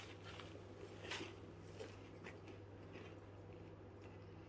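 Near silence: a faint steady low electrical hum, with a few faint soft clicks.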